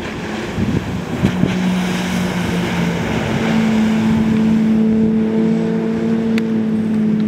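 Motorboat engine running steadily with wind buffeting the microphone. The engine hum settles in about a second in and steps up a little in pitch around three seconds in.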